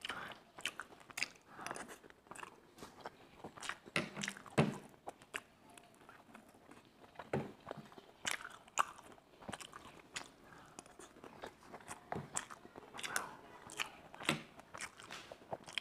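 A person chewing and biting fried food close to a clip-on microphone, with irregular crunches and the scattered clicks of a fork on a plate.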